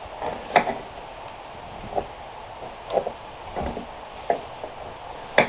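Irregular sharp wooden knocks and clunks, about one a second, as weathered planks and tools are handled and set down on the boards. The loudest knocks come about half a second in and near the end.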